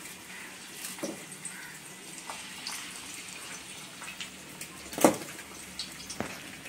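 Chili-marinated fish frying in a pan of hot oil: a steady sizzle with sharp pops and spatters scattered through it, the loudest about five seconds in.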